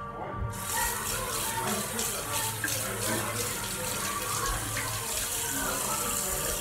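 Bathroom sink tap running, water splashing over hands being washed; it starts about half a second in and cuts off suddenly at the end.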